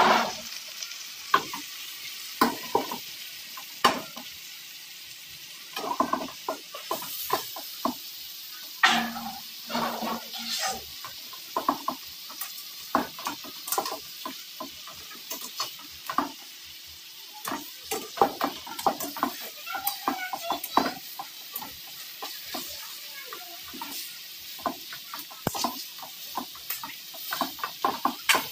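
Pork hocks sautéing in a metal wok with a steady sizzle, while metal tongs turn the pieces with frequent irregular clicks, knocks and scrapes against the wok.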